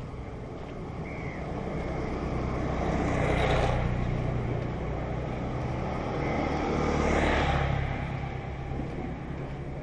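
Motorcycle engine running at low, steady speed while being ridden, with a rushing noise that swells twice, about three and a half and seven seconds in.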